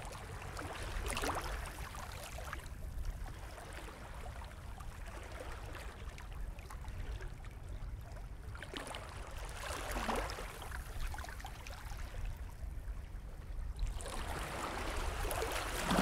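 Small waves lapping and washing in over a steady low rumble, with three gentle swells of wash: about a second in, about ten seconds in, and a louder one near the end.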